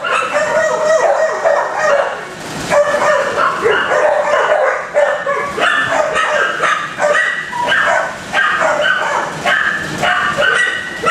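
Many shelter dogs in their kennels barking and yipping at once, a continuous din of overlapping barks with no break.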